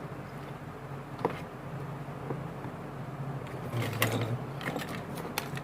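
Scattered light clicks and taps of small tools handling a phone circuit board, a few isolated ones and then a short cluster about four seconds in, over a steady low hum.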